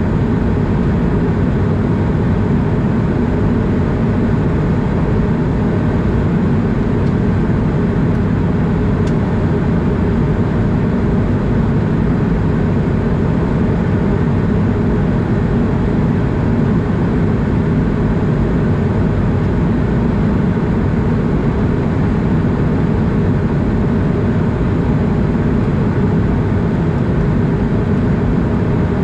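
Steady cabin noise inside an Airbus A220 in flight, a constant low rumble of airflow and its Pratt & Whitney PW1500G geared turbofan engines, heard from a window seat over the wing.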